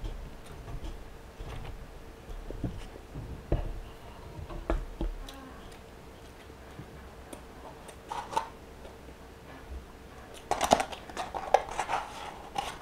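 Close-up eating sounds: chewing and finger-licking, with scattered small clicks and soft thumps. About ten seconds in, a paper burger wrapper is handled and unfolded, crinkling loudly for a couple of seconds.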